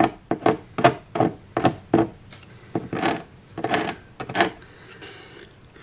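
A small hand tool scraping and picking water-softened model-railway track ballast off the baseboard: a quick, irregular run of short scrapes and scratches, several a second, that thins out near the end.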